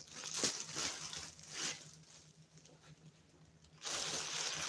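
Packaging being pulled and torn open by hand: a few short rustles and tears, then a longer, louder tearing near the end.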